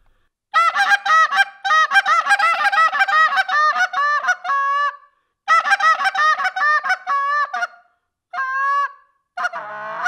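Short-reed goose call blown in the hiccup: a fast run of moans, each broken off by a quick spit, so the pitch flips up and down with every note. It comes in four runs split by short pauses, the first and longest lasting about four seconds.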